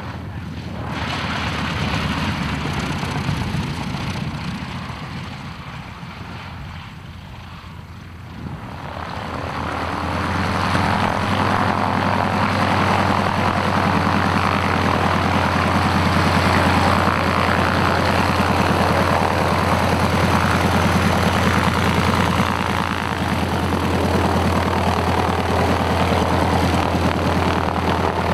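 Spartan 7W Executive's Pratt & Whitney R-985 Wasp Junior nine-cylinder radial engine running at low power as the aircraft taxies on grass. It grows louder about nine seconds in as the plane comes close, then runs steadily.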